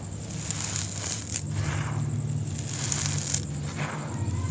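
Dry crumbled sand-cement powder and small gritty lumps crunching and crackling as hands scoop them up and let them spill, close to the microphone, with a few sharper crackles and a steady low hum underneath.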